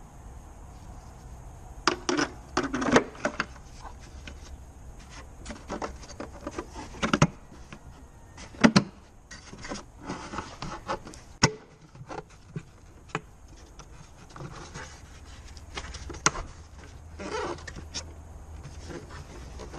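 Hard plastic parts of a Peugeot 207 rear tail light (lens housing and bulb holder) being handled: an irregular string of sharp clicks and knocks with short scraping and rubbing between them.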